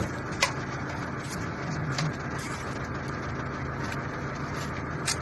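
A few sharp metallic clicks and taps from hand tools working on the power pack motor's stiff mounting bolts, the first about half a second in and the last near the end, over a steady mechanical hum.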